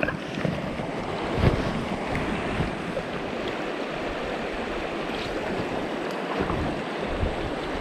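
Shallow river riffle rushing steadily over rocks, with wind buffeting the microphone in irregular low gusts.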